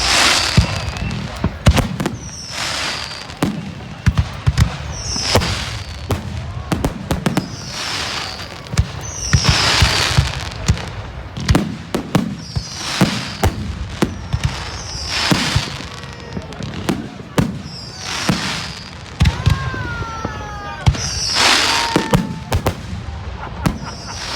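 Fireworks going off in a steady barrage, a bang-and-hiss burst every two seconds or so, with the hiss dropping in pitch, amid many sharp cracks.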